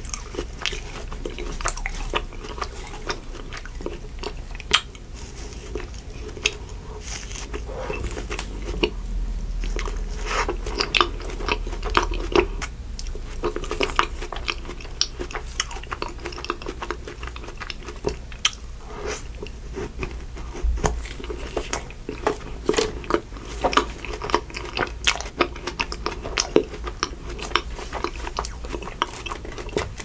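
Close-miked chewing and crunching of a Good Humor chocolate eclair ice cream bar with a crumbly coating, a steady run of irregular crackles and crunches.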